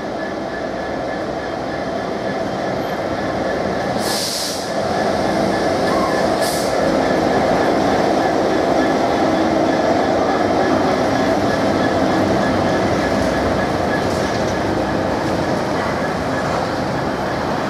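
Freightliner Class 66 diesel locomotive, its EMD two-stroke V12 engine running as it hauls a train of loaded hopper wagons past, growing louder as the locomotive draws level. Two brief hisses about four and six seconds in.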